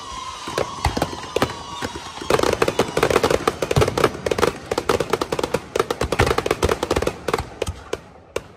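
Aerial fireworks going off: a rapid run of bangs and crackling that thickens into a dense crackle about two seconds in, then thins out near the end.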